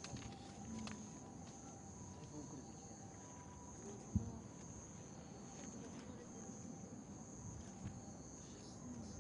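Night insects trilling steadily at a high pitch over a low background rumble, with one dull thump about four seconds in.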